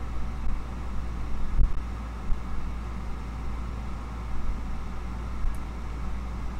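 Steady low mechanical hum and rumble, with one dull thump about one and a half seconds in.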